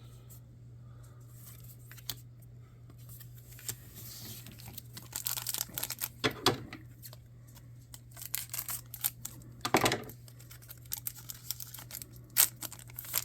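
Trading cards being handled and flipped through: irregular light rustles, slides and clicks of card stock, over a steady low hum.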